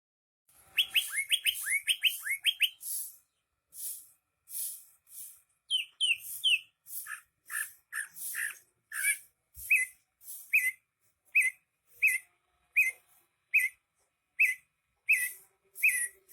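Green leafbird (cucak hijau) in full song. It opens with a quick run of rising whistled notes, then repeats short, sharp notes about one every 0.7 s, each with a harsh, hissy edge.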